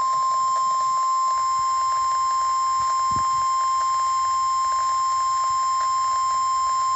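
NOAA Weather Radio's 1050 Hz warning alarm tone: a single, steady, loud high tone held without a break, the alert signal that opens an emergency warning message.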